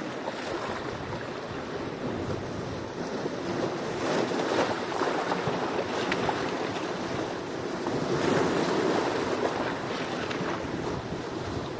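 Sea waves washing on a shore, a steady surf hiss that swells as a wave breaks about four seconds in and again about eight seconds in.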